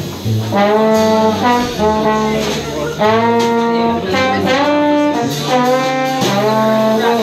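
Jazz trombone solo: short phrases of held notes, several scooped up into at their start, over a plucked upright bass line.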